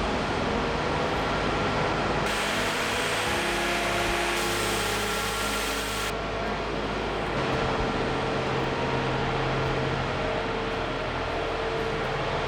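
Power generator engine running steadily with a constant hum, keeping power on during a city-wide outage. The background noise changes abruptly a few times.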